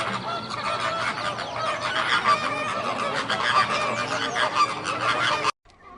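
A flock of birds calling, many short pitched calls overlapping densely; it cuts off abruptly near the end, leaving only faint sounds.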